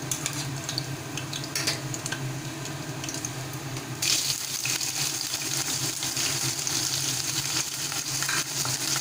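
Chopped green chillies sizzling gently in hot oil in a kadai, with a few small clicks. About four seconds in, sliced onion goes into the oil and the sizzle jumps to a louder, brighter hiss that keeps on steadily.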